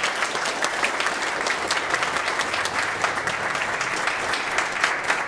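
An audience applauding: many hands clapping in a steady patter that keeps an even level throughout.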